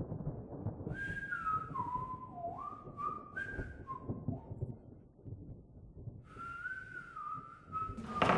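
A slow whistled tune, one pure line of held notes that step and slide between pitches, pausing midway, over a low rumble. A sudden loud noise starts at the very end.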